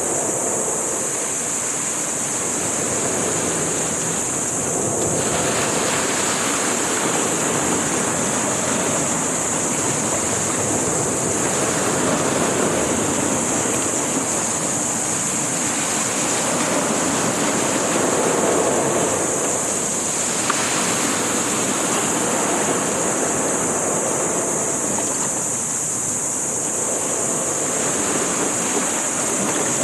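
Sea waves washing and surging, swelling every several seconds, over a steady high-pitched hiss.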